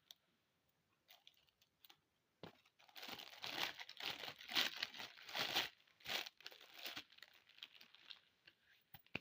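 Candy wrapper being crinkled and torn open: a few light clicks at first, then dense crinkling from about three seconds in until about seven seconds, tailing off into faint clicks.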